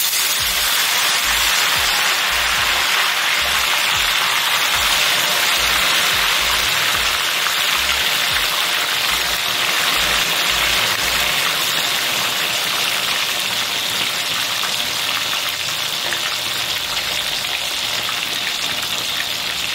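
Raw breadfruit sticks deep-frying in hot oil in a wok: a loud, steady, dense sizzle as the moisture in the freshly added batch boils off.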